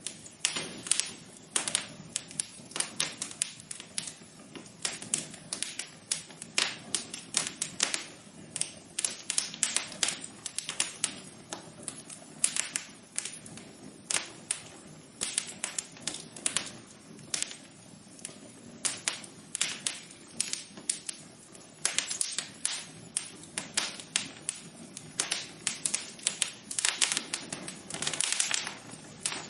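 Wood fire crackling in a fireplace: irregular sharp pops and snaps, often several in quick clusters, over a steady low hiss of burning.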